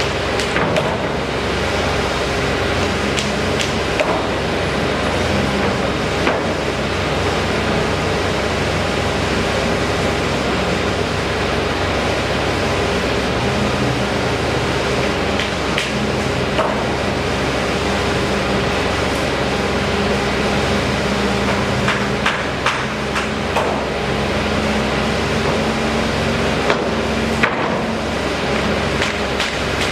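Construction-site noise: machinery running steadily with a low hum, and sharp knocks every few seconds.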